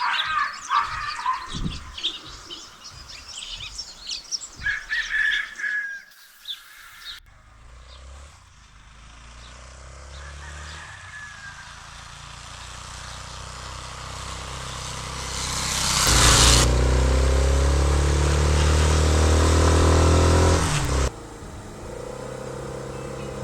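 Birds chirping for the first few seconds, then a Benelli TNT 25 motorcycle engine running steadily. It grows louder, is loudest for about five seconds near the end, and then drops suddenly to a quieter, even run.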